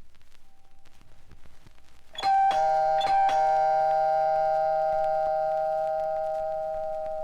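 A two-note chime struck four times in quick succession about two seconds in, its two notes then ringing on together and slowly fading.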